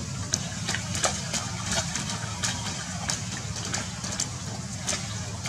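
Young macaques splashing as they wade and scuffle in a shallow puddle: a scatter of short, sharp splashes over a steady low hum.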